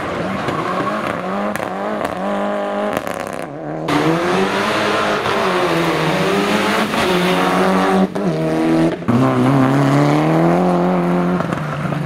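Rally car engines revving hard, pitch climbing and dropping again and again through gear changes and lifts as the cars slide, with tyre noise over them. The sound breaks off abruptly a few times, about 3.5 and 8 seconds in, as different cars follow one another. The last few seconds are a Mitsubishi Lancer Evolution rally car held at steady revs, then easing off.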